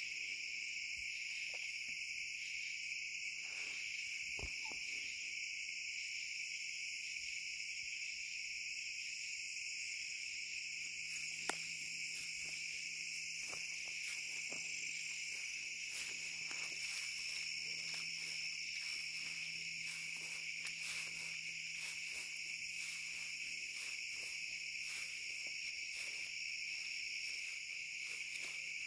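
Steady chorus of night insects, a continuous high-pitched chirring that never lets up. From about a third of the way in there are scattered faint clicks, with one sharper click among them.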